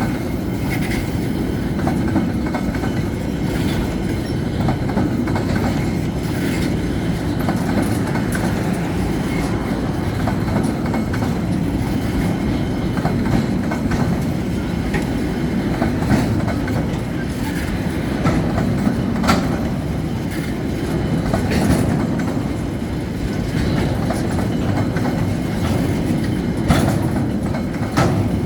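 Belgrano Cargas freight train's wagons rolling past: a steady, heavy rumble with irregular sharp clicks and knocks from the wheels on the rails.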